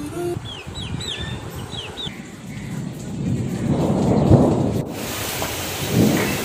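Thunder rumbling, building to a loud peak about four seconds in, with a few short high falling bird chirps before it. After a sudden cut, a steady storm hiss follows.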